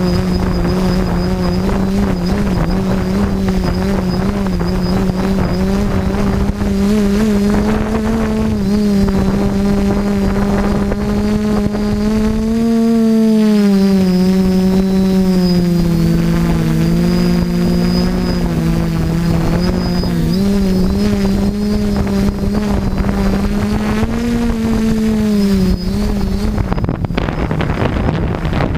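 FPV drone's electric motors and propellers humming loudly over wind rushing across the onboard camera's microphone. The pitch rises and dips about halfway through, briefly splitting into two close tones, and the hum drops out near the end, leaving the wind.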